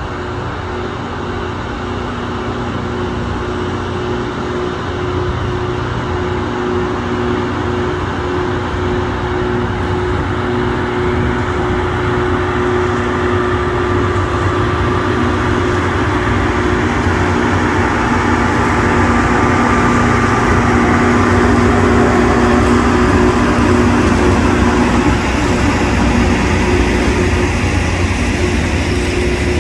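Loram rail grinding train running along the track, its diesel power units giving a steady mechanical hum with a few held tones, growing louder as it draws near and passes close by.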